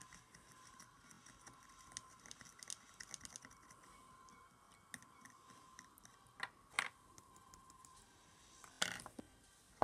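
Faint small clicks and light scraping from a plastic bottle cap being handled while bicarbonate of soda and water are stirred in it by finger, with a few louder taps in the last three seconds.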